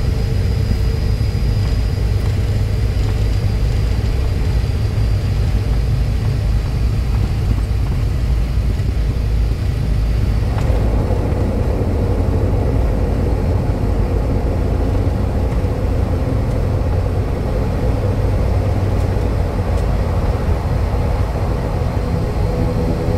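ATR 72-500 turboprop heard from the cockpit: a steady, heavy rumble of its engines and propellers. About ten seconds in, the high hiss drops away and a set of humming tones comes up, a change in the engine and propeller sound during the landing.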